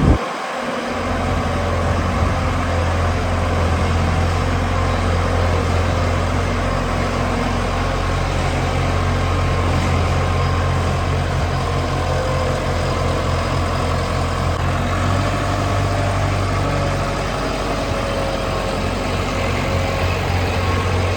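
Heavy engine of farm machinery running steadily with a low, even hum.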